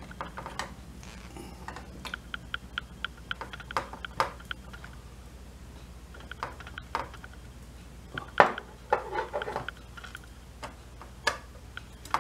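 Small cutters snipping the excess capacitor leads off the solder side of a freshly recapped amplifier circuit board: a scatter of sharp clicks, with a quick run of small ticks about two seconds in and the loudest snips about eight and a half seconds in, among taps of the board being handled.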